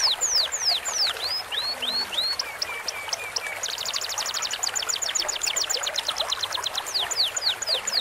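Bird-song training recording of canary, cucak cungkok leafbird and lovebird song layered over a babbling stream. Fast runs of high, sweeping whistled notes, a few long falling slurs about a second in, then a rapid ticking trill from about three and a half seconds.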